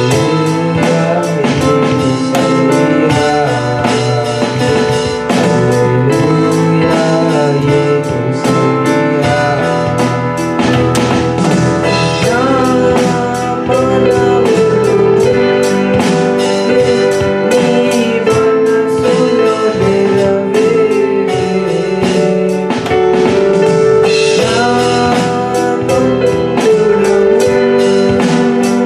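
A boy singing a Telugu worship song into a microphone, accompanied by a Yamaha keyboard playing held chords and a drum kit keeping a steady beat.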